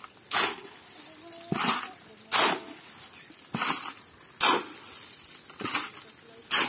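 Hand-mixing concrete: a long-handled tool scraping and turning through a pile of sand and cement, in repeated strokes about one a second, seven in all.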